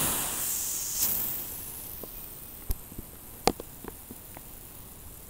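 Garden hose spraying: a hiss of water spray, loudest at the start with a second surge about a second in, then dying down to a faint steady hiss. A few sharp clicks come in the middle.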